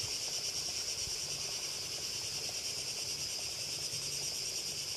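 Steady chorus of insects chirring outdoors, a dense high buzzing trill that runs on without a break.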